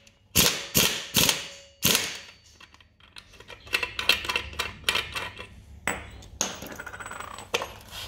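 Impact wrench (rattle gun) firing in four short bursts to undo the nut on a scooter clutch and torque-driver assembly, followed by light metallic clinks and handling as the socket and loosened nut are taken off.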